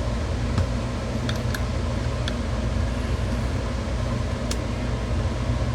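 Window air-conditioning unit running with a steady, even hum. Four light clicks from parts of a knife sharpener being fitted together.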